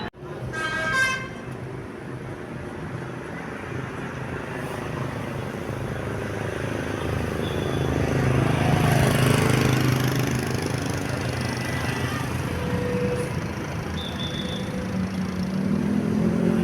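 A bus's basuri musical horn gives a short toot about a second in. Then engine and road noise swell to a peak around the middle and ease off as a vehicle passes.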